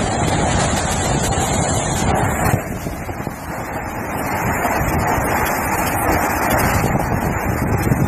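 Steady rushing noise of a waterfall, with its wind buffeting the microphone. The noise drops briefly about two and a half seconds in.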